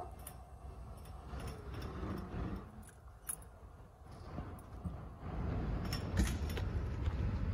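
Fire engine's diesel engine running low as the truck moves slowly, growing louder about five seconds in, with a few sharp clicks and rattles.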